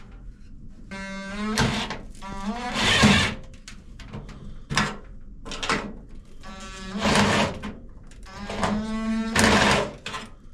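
Cordless drill with a magnetic driver bit driving screws, twice: each time the motor whines up in pitch, then turns to a harsher grinding as the screw bites. Runs start about a second in and again about seven seconds in, with a couple of short clicks between.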